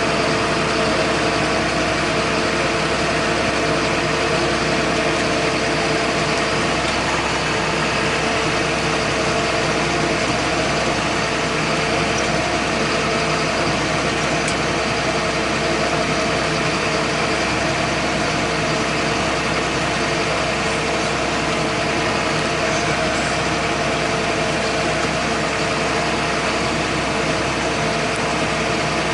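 John Deere 8100 tractor's six-cylinder diesel engine running steadily, pulling a square baler through the hay field, with a constant drone and hum and no change in speed.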